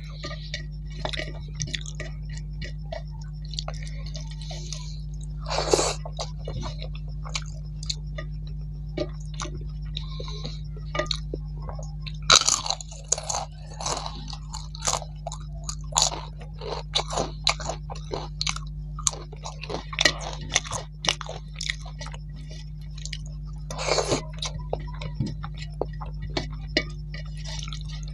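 Close-miked chewing and crunching as a thali is eaten by hand: many short crisp crunches of fried papad, thickest in the middle stretch, between softer chewing of rice and vegetables. A steady low hum runs underneath.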